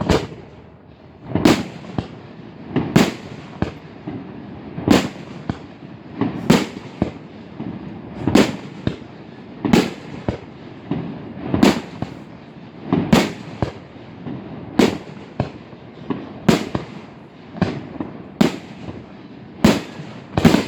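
Fireworks shells bursting in a steady series, one loud bang about every second and a half, with smaller bangs in between.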